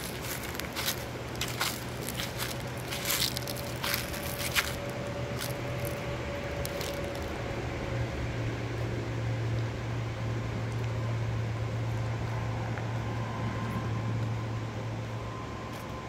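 Footsteps crunching on a dry dirt and gravel track, thickest in the first few seconds, over a steady low hum that grows stronger about halfway through.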